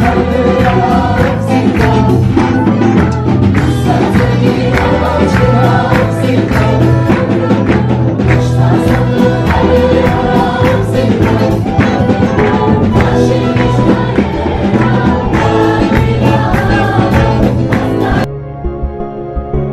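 Live church worship music: a group of women singing into microphones over acoustic guitar and drums, with sharp percussion hits throughout. Near the end it cuts abruptly to softer, muffled music.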